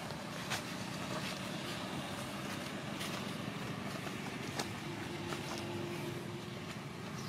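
Steady low hum of an engine running, with a few faint clicks scattered through it.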